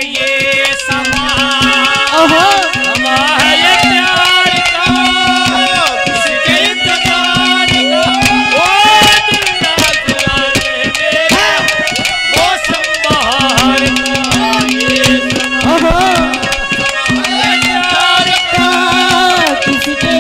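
Haryanvi ragni band playing an instrumental interlude: hand drums keep a fast rhythm under a melody with sliding notes and a held low drone note that drops out now and then.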